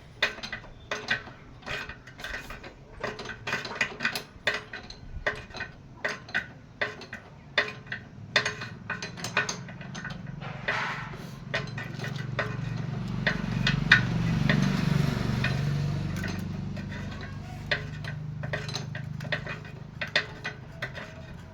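Metal hand tools clinking and ratchet-like clicking, a few strikes a second, as small nuts on a motorcycle clutch's oil plate are fitted. A low hum swells and fades in the middle.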